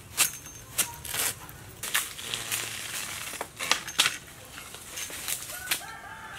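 Irregular sharp strikes of a long-handled hoe blade chopping into the base of a bamboo shoot and the soil and dry leaves around it, about eight hits. A chicken calls near the end.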